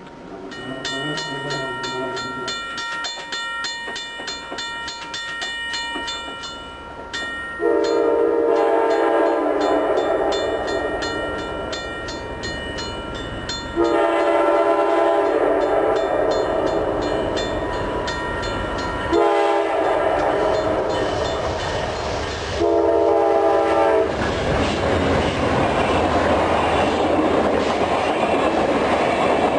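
A diesel locomotive's air horn sounding four blasts, the first two long and the last two shorter, with a rapid ringing before the horn. The train then passes with rumbling and clattering wheels.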